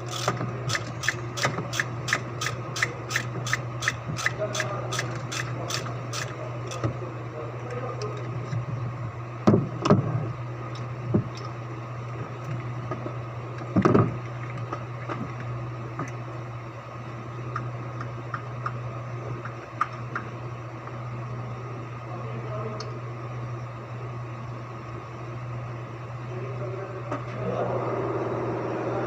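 A ratchet wrench clicking evenly at about three clicks a second for several seconds, followed by a few tool knocks and clanks. Near the end an engine starts and runs steadily.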